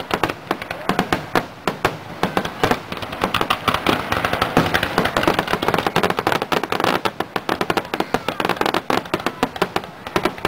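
Aerial fireworks shells bursting in a rapid barrage of many sharp bangs a second with no let-up.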